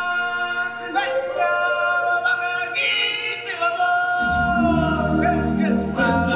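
Singers in a live stage show, holding long notes with little backing at first; deep, low instrumental accompaniment comes in about four seconds in.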